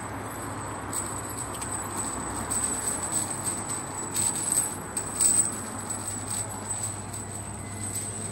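Heavy metal chains draped around a man's neck jangling and clinking irregularly as he walks, over a steady low hum.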